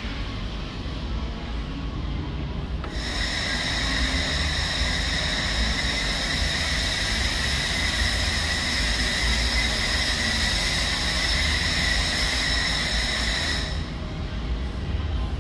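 Laser welder running: a steady hiss with a high-pitched whine starts about three seconds in and cuts off near the end, over a low machine hum.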